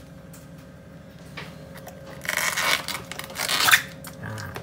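A banana flower's waxy outer bract being peeled back by hand: two crisp tearing, scraping rasps about a second apart in the second half.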